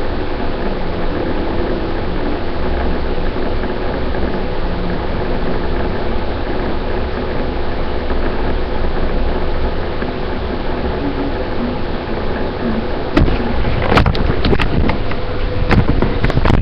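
A steady machine-like drone with a low rumble and a faint hum, then several sharp knocks and clicks in the last three seconds or so.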